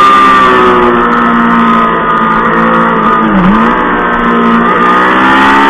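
Honda Fireblade sportbike's inline-four engine running hard at high revs under way, with wind rush over the bike. About three and a half seconds in, the engine note dips sharply and comes straight back up.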